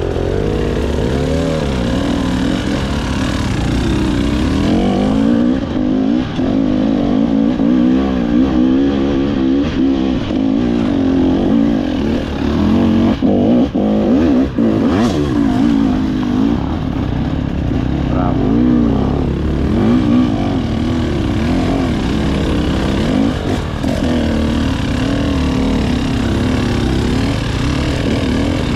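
KTM EXC 300 TBI's single-cylinder two-stroke engine being ridden hard off-road, its pitch rising and falling constantly as the throttle is worked, with a few knocks in the middle.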